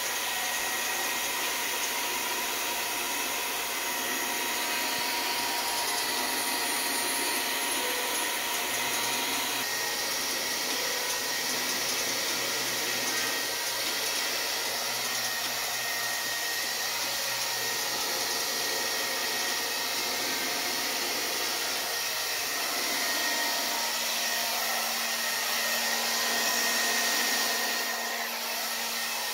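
Hair dryer running steadily, blowing air to spread and move wet fluid paint on the canvas.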